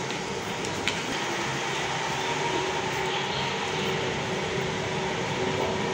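Steady rushing background noise with a faint constant hum, and a small click about a second in.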